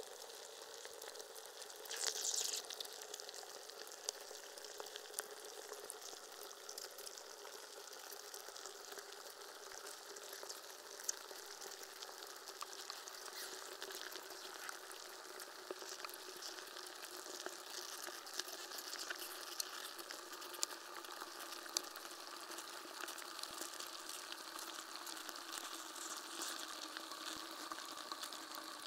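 A block of ice melting in water, heard through contact microphones frozen inside it: a continuous fizzing crackle of many tiny pops and clicks. There is a louder burst about two seconds in and a few sharper cracks later on.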